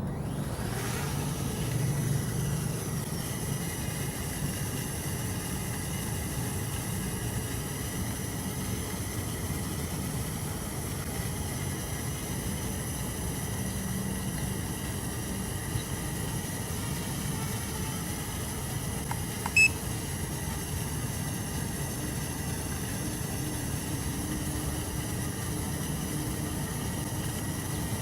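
ZINO Mini Pro quadcopter's motors and propellers spinning up at the start and then running steadily in flight, a steady whine. A short electronic beep sounds about two-thirds of the way through.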